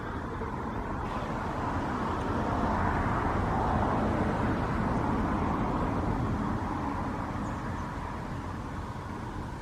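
A vehicle passing by: a rushing noise that swells to a peak about four seconds in and then fades away.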